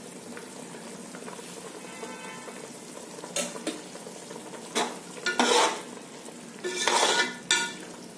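A spoon stirring a cooking pot of hot water, chicken and fresh herbs, scraping against the pot in several strokes from about three seconds in, over a steady low hiss from the pot.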